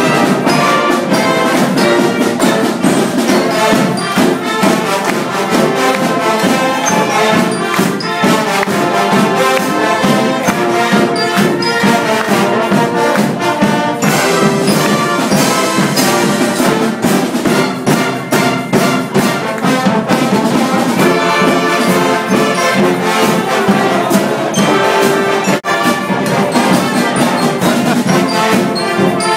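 A band playing live, brass-heavy music, with drum strikes all the way through.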